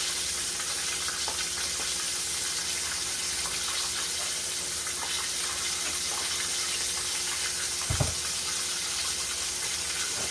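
Breaded chicken frying in hot oil in a pan: a steady sizzle with fine crackling. A single dull thump about eight seconds in.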